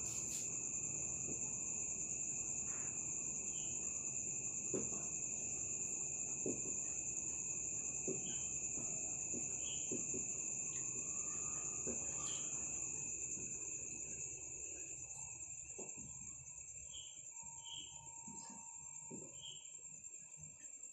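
Crickets trilling steadily and high-pitched, with faint scattered taps of a marker writing on a whiteboard.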